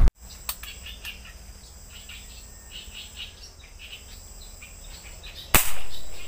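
Crickets and birds chirping in a thicket, with a steady high insect tone. Near the end comes one sudden loud thump with a short rushing noise fading after it.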